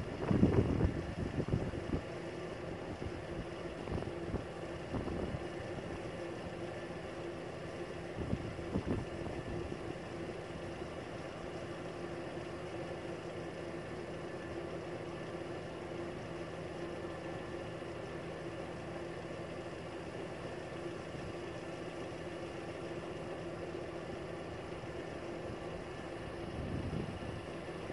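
Level crossing warning alarms sounding a steady, unchanging tone while the barriers are down. Wind gusts buffet the microphone in the first couple of seconds, again about eight seconds in, and near the end.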